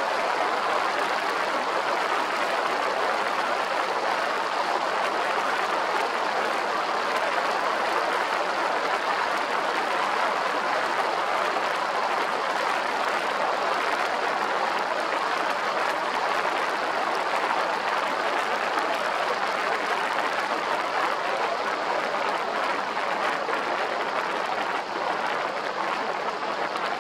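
Cruiser motorcycle travelling at highway speed: a steady rush of wind and road noise over the handlebar-mounted microphone, with no clear engine note standing out.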